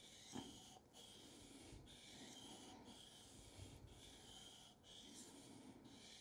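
Faint scraping of a carving gouge's bevel stroked back and forth on a wet Japanese waterstone, rocked across the gouge's sweep at about one stroke a second while the primary bevel is sharpened to raise a burr. One brief louder sound comes just under half a second in.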